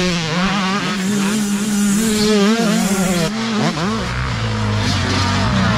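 Dirt bike engines revving up and down with the throttle on a trail climb. About four seconds in, a deeper, steadier engine note comes in underneath.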